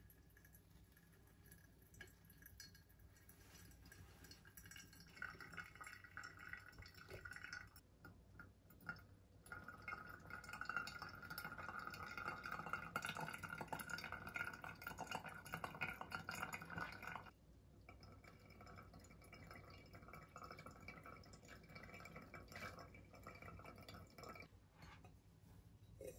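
Hot water poured in a thin stream from a gooseneck kettle onto coffee grounds in a ceramic pour-over dripper, with the brew trickling into a glass server below. The faint pouring comes in several spells with short breaks, loudest in the middle one, which cuts off about 17 seconds in.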